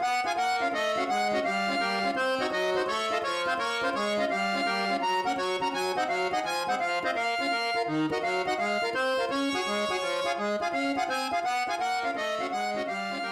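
Background music: an upbeat instrumental tune with a steady, regular rhythm, starting to fade out near the end.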